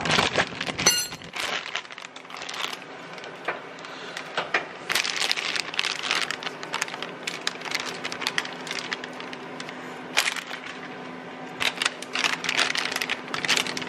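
Cauliflower florets being dropped and spooned into thick cheese sauce in a stainless steel pan: soft crunching and crackling with scattered clicks. The busiest stretches come about five seconds in and near the end.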